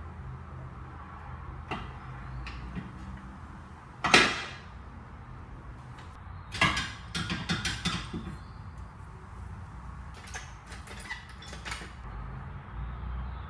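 Hand tools clanking and knocking against metal car suspension parts. There is one loud clank with a short ring about four seconds in, then a quick run of knocks and a few scattered ones, over a steady low hum.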